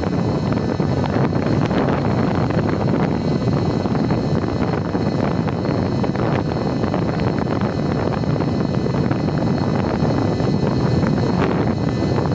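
Steady rush of wind across the onboard camera microphone of a Mini Talon fixed-wing plane in flight, mixed with the running of its electric pusher motor and propeller. A faint steady high whine sits above the rush.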